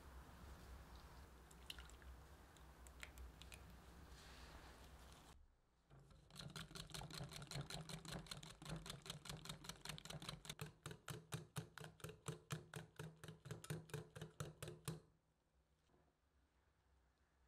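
A wire hand whisk beating cream cheese batter in a glass bowl. It makes a quick, even rhythm of about four or five strokes a second for roughly nine seconds, then stops suddenly. Before the whisking there is a soft hiss with a few light clicks as the cream mixture is poured in.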